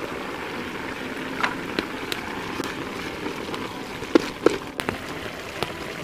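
Coconut cream sauce with diced meat and heart of palm bubbling hard in a pan: a steady fizzing, bubbling hiss. A few sharp pops or knocks come through it, the loudest two in quick succession about four seconds in.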